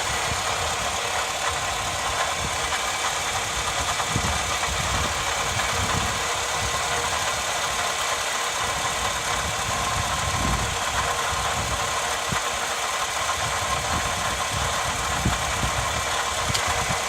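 Toyota Alphard (10 series) engine idling with the abnormal noise of a failed V-belt tensioner: a steady running sound with a constant whine in it and irregular low knocks underneath.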